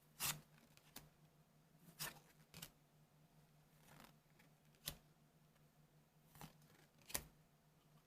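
Trading cards being handled and flipped through, about six short, soft swishes of card sliding against card, over a faint steady hum.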